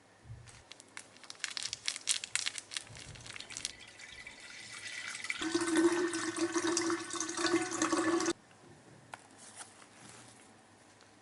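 Scattered clicks and crinkling, then water running steadily for about three seconds and cutting off suddenly.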